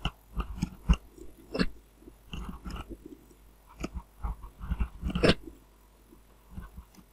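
Computer keyboard typing and mouse clicks: irregular short clicks and taps, with louder ones about a second in and again just past five seconds.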